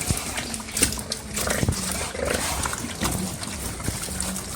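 Native pigs grunting as they feed, with scattered clicks and knocks.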